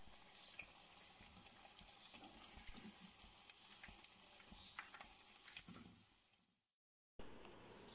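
Faint sizzle of hot oil frying, with a few soft clicks, fading out about six and a half seconds in.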